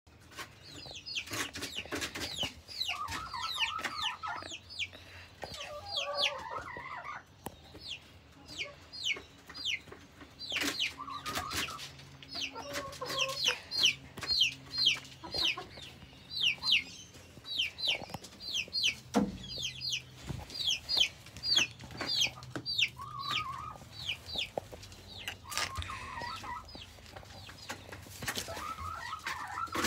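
Chicks peeping over and over in short, high cheeps that fall in pitch, several a second at times, with adult hens clucking now and then underneath.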